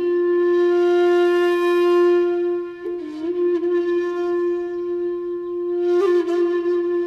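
Solo flute music playing long, held notes. The pitch dips briefly about three seconds in, and a quick ornament comes near the end.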